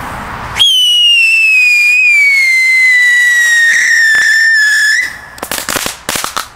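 Whistling firework tube: a short fuse hiss, then a loud, piercing whistle that slides slowly down in pitch for about four and a half seconds before cutting off. A quick run of sharp, quieter cracks follows near the end.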